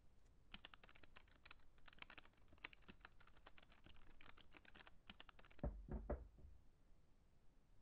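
Typing on a laptop keyboard, a quick run of light key clicks for about five seconds. The typing then stops, and three dull knocks follow in quick succession.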